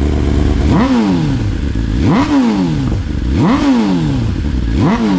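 BMW S1000RR's inline-four engine being blipped while warming up: four quick revs about a second and a half apart, each rising sharply and falling back to idle.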